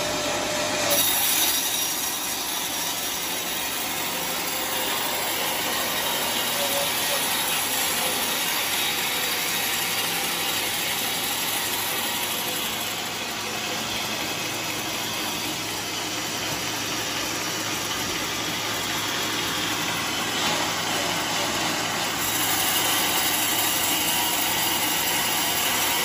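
Band sawmill running and cutting lengthwise through a teak log, a steady dense whirring rasp of blade through wood that gets a little louder over the last few seconds.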